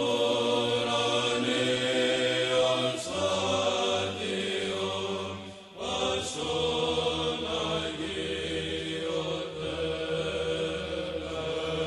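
Male voices singing a slow Orthodox Byzantine chant over a held drone note, as background music. The notes are long and sustained, and the melody changes about three and six seconds in.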